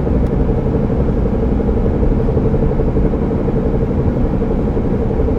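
Car driving with a steady hum over low road rumble, the noise from the driver-side front wheel area that grows louder with speed and does not change when braking or turning; the owner suspects a bad tire or a drivetrain fault.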